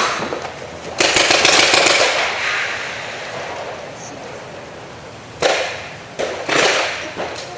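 Paintball markers firing quick strings of shots: a dense volley about a second in, then shorter volleys near the end. The shots echo and die away slowly in a large indoor hall.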